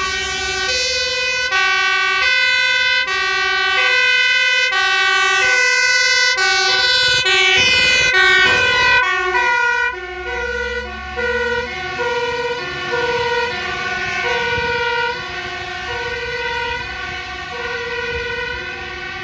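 Fire engine's two-tone siren alternating between a high and a low note, each held for about three quarters of a second, loud as it approaches. About eight seconds in the truck passes close, with a dip in pitch and its engine rumble, then the siren carries on more faintly as it moves away.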